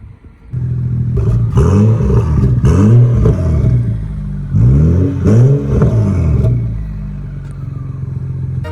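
BMW F30 335i's N55 turbocharged straight-six exhaust, through a high-flow catted downpipe and muffler delete, running and revved in two bursts of quick throttle blips before settling back to idle. The engine sound comes in suddenly about half a second in.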